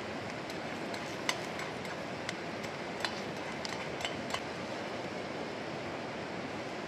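Steady rush of a mountain stream, with about six sharp light clinks and taps between about one and four and a half seconds in.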